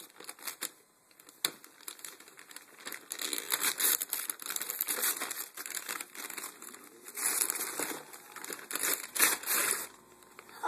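Wrapping paper being torn and crinkled as a child rips open a gift, with a few scattered crackles at first and then several long bursts of tearing and rustling.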